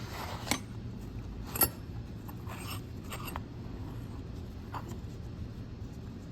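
Metal hand tools from a vintage Jaguar XK 120 tool roll being handled, giving a few light clinks and scrapes, the loudest about one and a half seconds in, over a steady low hum.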